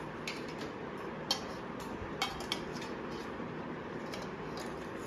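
A metal spoon clinking lightly against a steel plate several times while someone eats, over steady background noise.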